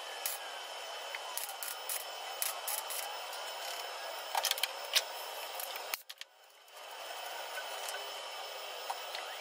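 Welding arc crackling and sizzling steadily with many sharp pops, as a replacement steel panel is tacked into a car's rusted C-pillar. It cuts out abruptly about six seconds in and starts again under a second later.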